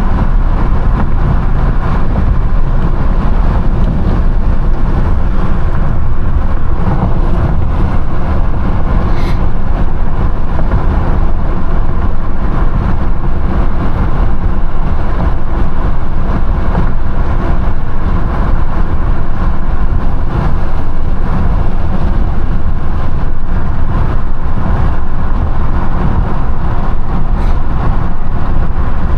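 Wind buffeting the microphone of a moving car: a loud, steady low rumble that buries the engine sound.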